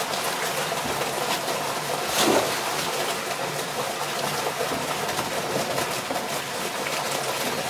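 Water splashing and pouring into a koi transport tank as a net of koi is emptied into it, over a steady rush of water in the tank; the loudest splash comes about two seconds in.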